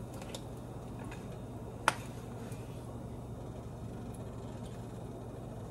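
A few faint clicks and one sharp tap about two seconds in, from a plastic spatula working fried luncheon meat slices out of a frying pan onto a paper-towel-lined plate, over a steady low hum.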